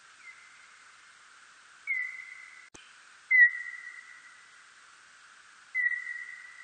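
Bat calls (멧박쥐) brought down to audible pitch, heard as four whistle-like tones at uneven intervals. Each is a quick downward slide into a steady tone that fades away, over a steady hiss; the third is the loudest. A single sharp click sounds just before it.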